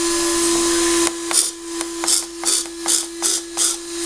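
RC servo driving a model car's electric windscreen wipers, whirring in short quick bursts about two to three times a second as the wipers sweep up and down, starting about a second in, over a steady electric hum.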